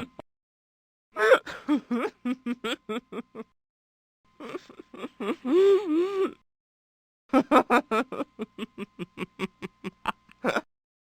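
Three separate recorded laughs, each a couple of seconds long with silence between them: quick pulsing bursts of laughter, the middle one a drawn-out laugh with a wavering pitch.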